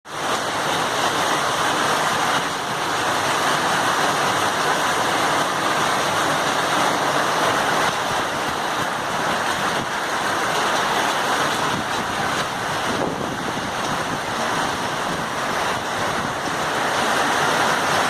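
Heavy rain pouring down, a dense, steady hiss that keeps on without a break.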